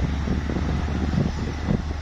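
Heavy bulldozer's diesel engine running with a steady low hum, with wind buffeting the microphone.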